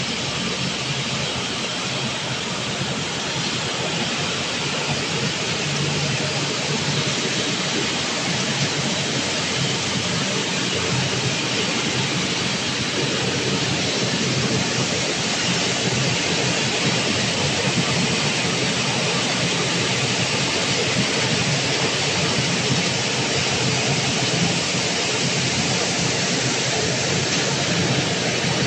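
Puffed breadcrumb extrusion line running: the extruder, cutter and conveyor drives make a loud, steady, even machinery noise.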